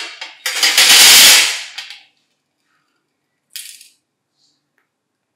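Small metal jigsaw parts (gears, bushings, screws and a shaft) tipped out of a wire-mesh strainer into a stainless steel tray, clattering loudly for about a second and a half, then a brief light rattle a couple of seconds later.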